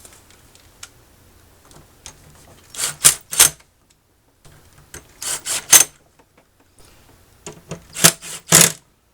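Drill with a Phillips bit driving hinge screws into a plastic cooler, in three short bursts about three seconds apart: the top hinge screws being tightened down.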